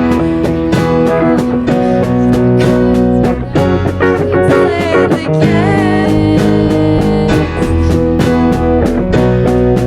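Band music with no singing: guitars over bass and a steady drum beat, with a lead line that bends in pitch about five seconds in.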